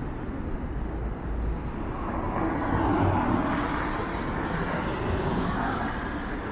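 Street traffic: a passing vehicle whose noise swells to a peak about three seconds in, then eases off.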